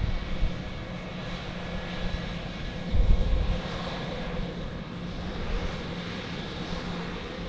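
Boeing 717's rear-mounted jet engines running at taxi power, a steady hum with a thin high whine. A brief low rumble about three seconds in.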